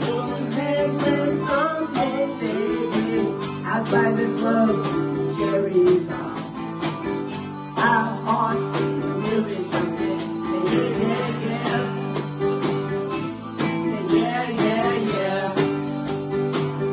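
A woman singing lead over a strummed acoustic guitar, played live.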